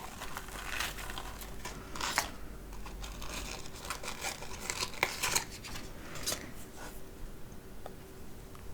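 A small bag being handled and opened, crinkling and rustling in irregular bursts that die down near the end.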